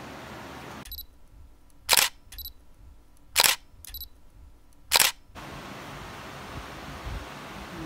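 Camera shutter firing three times, about one and a half seconds apart, each shot preceded by a short high beep.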